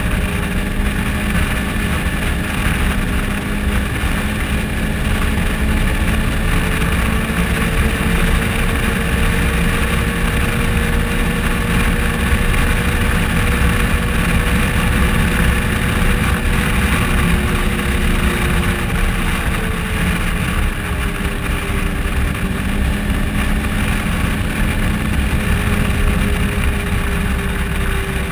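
Polaris RZR side-by-side driving at highway speed: a steady engine drone mixed with wind and road rumble, its pitch drifting slightly up and down as the speed changes.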